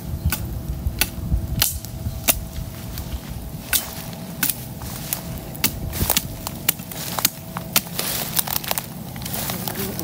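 Small open campfire of twigs and brushwood crackling, with many sharp, irregular pops.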